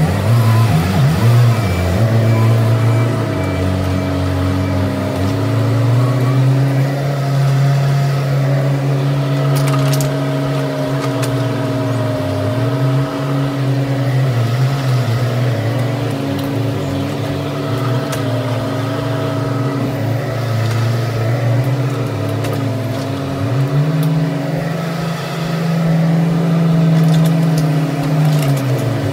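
Bobcat E10 mini excavator's small diesel engine running steadily under load while it digs. Its pitch dips briefly a few times and rises to a higher, steady note for several seconds near the end, as the hydraulics take up the work.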